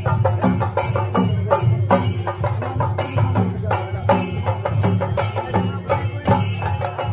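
Kerala chenda drums played by an ensemble in a fast, steady rhythm, with dense repeated strikes throughout.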